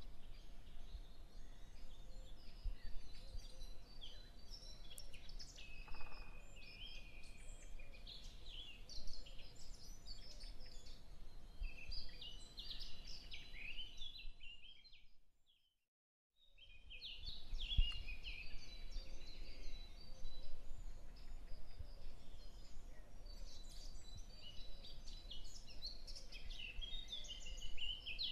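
Small birds chirping and twittering over a steady background hiss. About halfway through, the sound fades out to silence and comes back a second or so later.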